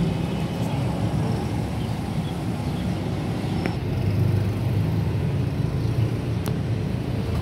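Steady low rumble of passing road traffic and street noise, with a few faint clicks.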